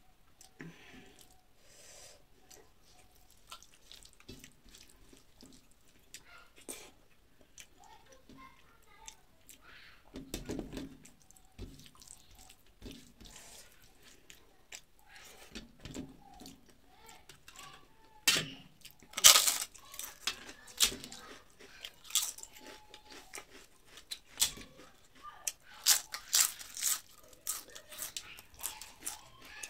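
Crisp fried papad being broken and crunched in the mouth: sharp crackling crunches, frequent and loud in the second half. Before them, quieter eating sounds as rice and curry are mixed by hand on a steel plate and chewed.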